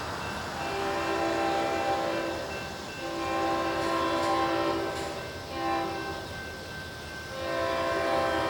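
Leslie S5T five-chime air horn on a GP40 diesel locomotive sounding a steady chord in the grade-crossing pattern: two long blasts, a short one, then a final long blast still sounding at the end.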